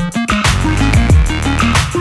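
Background electronic music with a beat and repeated deep, falling bass hits.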